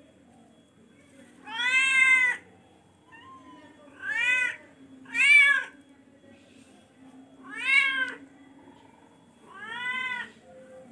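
Charcoal F1 hybrid cat meowing loudly five times, each call rising and falling in pitch, spaced one to two and a half seconds apart.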